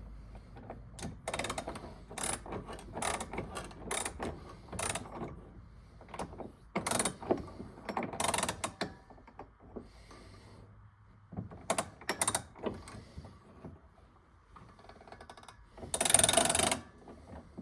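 Copper pipe and plumbing tools being handled: a scattered series of clicks, knocks and short scrapes. There is a louder scraping rush lasting about a second near the end.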